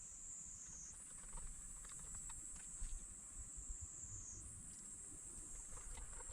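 Faint steady high-pitched electronic whine that steps in pitch twice, with a few light clicks and taps of parts being handled while a portable power station is put back together.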